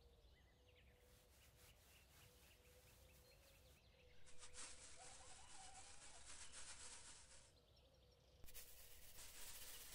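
Near silence: faint outdoor ambience, a soft hiss that jumps in level about four seconds in and again near the end, with faint bird chirps.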